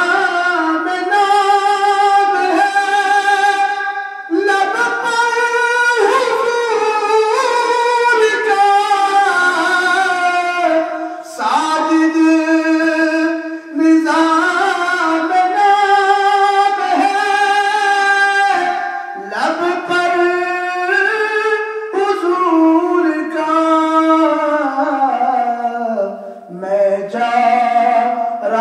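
A man singing an Urdu naat, a devotional poem in praise of the Prophet Muhammad, unaccompanied into a microphone. He holds long, ornamented notes that glide between pitches, with short breath pauses between phrases.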